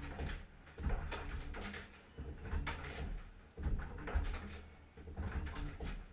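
Washing machine running: irregular knocks and clunks, roughly one a second, over a steady low hum.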